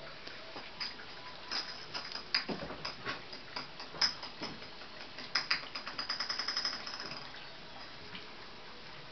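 Kittens' claws catching and scratching on the fabric of cat beds as they play: scattered light clicks, then a quick run of clicks about six seconds in.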